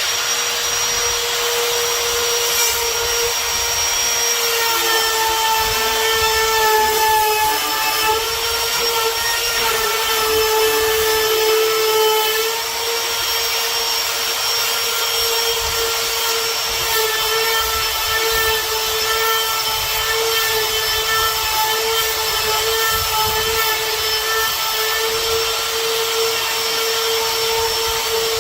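Handheld router starting up and running continuously with a steady high whine, cutting a hinge mortise in a wooden door through a hinge template. The pitch dips slightly several times as the bit takes load.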